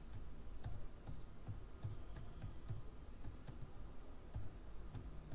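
Typing on a computer keyboard: faint, irregularly spaced keystrokes as a short name is typed in.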